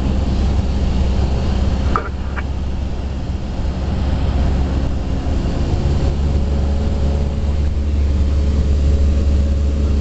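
Cessna 172SP's four-cylinder Lycoming engine and propeller droning steadily, heard inside the cabin during the approach. The drone dips slightly about two seconds in, with two short high chirps.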